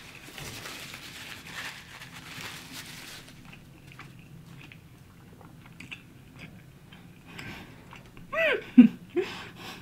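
A person biting and chewing food, with crunching through the first few seconds and small mouth clicks after it. Near the end there is a brief voiced sound, rising and falling in pitch.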